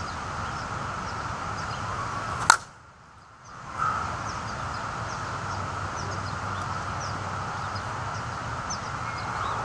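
A slowpitch softball bat striking a softball once: a single sharp crack about two and a half seconds in.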